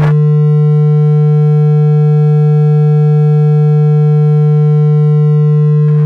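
A loud, steady, low electronic buzzing tone with many overtones, held unchanged for about six seconds.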